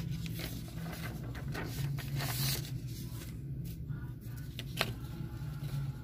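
Rustling and scraping noises, brightest about two seconds in, with a sharp click just before the end, over a steady low hum.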